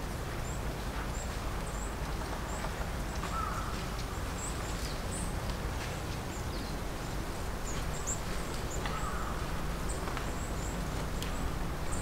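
Long-tailed tits giving many short, very high, thin calls, scattered irregularly, over a steady low background rumble. Two lower, harsher calls come through, about three seconds in and again near nine seconds.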